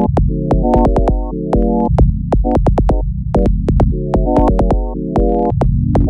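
Background electronic music: synthesizer chords over a steady bass line and a drum-machine beat.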